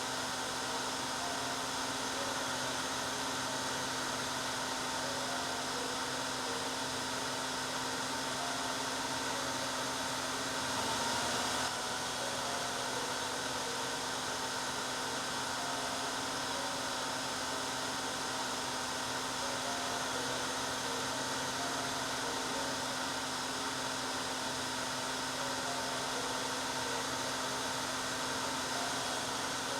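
Hair dryer running steadily: an even blowing rush with a constant motor hum. About 11 seconds in, the hum's pitch dips slightly and the rush brightens for a moment.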